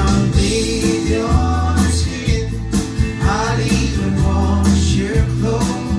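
A song played back through Focal 1038 Be floor-standing loudspeakers driven by McIntosh MC452 power amplifiers: a singing voice in short phrases over sustained deep bass notes.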